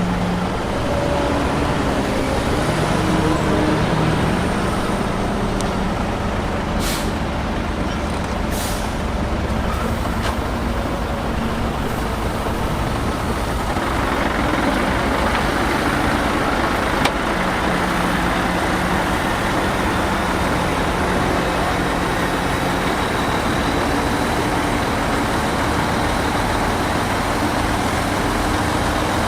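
Heavy diesel engines of earthmoving machines running steadily, with two short hisses of air about seven and nine seconds in. From about halfway the engine noise grows harsher and brighter.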